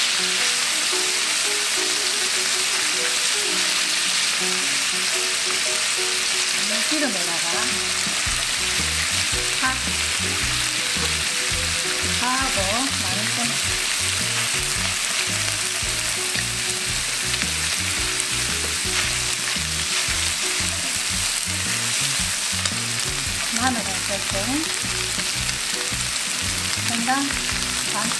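Thinly sliced pork belly sizzling steadily in a frying pan and stirred with wooden chopsticks, with chopped scallions and garlic scapes frying in the rendered pork fat.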